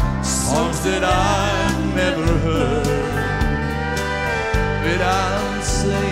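Live country band playing a song: a man singing lead over acoustic and electric guitars, bass guitar and a steady beat.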